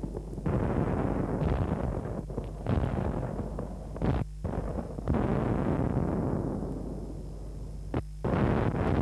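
A series of sudden deep booms, about half a dozen, each dying away over a second or so, with a steady low electrical hum underneath.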